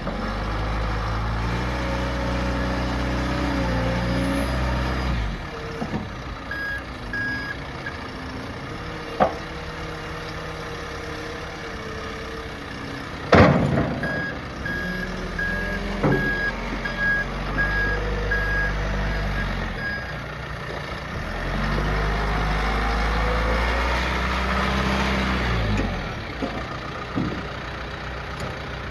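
John Deere 410L backhoe loader's diesel engine running, revving up and back down several times. Its reversing alarm beeps in two runs, and there is one loud metallic clank about halfway through.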